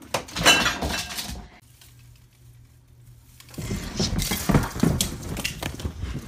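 Christmas decorations clattering as a cat knocks them off a high shelf, then, about three and a half seconds in, a longer crash of rustling branches and clinking ornaments as the cat leaps into a decorated Christmas tree.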